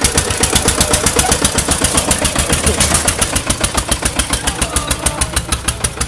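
Single-cylinder diesel engine of a concrete mixer machine chugging hard under load as the machine is driven up a ramp. It opens up sharply at the start into loud, even beats, about six or seven a second.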